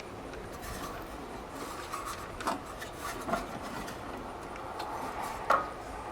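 Hands rubbing and shuffling with small tools and parts, with three light knocks as items are picked up or set down.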